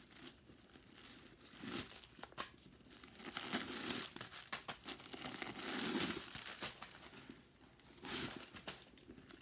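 Crinkling and rustling from handling the inside of a new leather handbag, in irregular bursts with a few light clicks.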